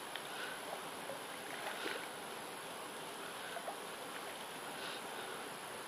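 Faint, steady outdoor hiss by a small river pool, with a few faint light ticks and splashes as a walk-the-dog topwater lure is twitched across the water's surface.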